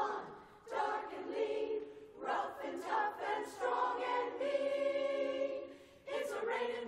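Women's chorus singing a cappella in close harmony, in short phrases with brief breaks, with one chord held for about a second and a half before a new phrase starts near the end.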